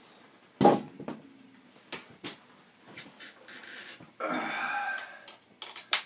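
Handling noise from swapping electric guitars: a sharp thump about half a second in, a few light clicks, and about a second of rustling noise a little after four seconds in.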